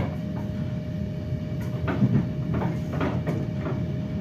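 RA2 railbus heard from inside the passenger car while under way: a steady low rumble with a constant hum, and a few knocks and clunks from the running gear, a sharp one at the start and several from about two seconds in.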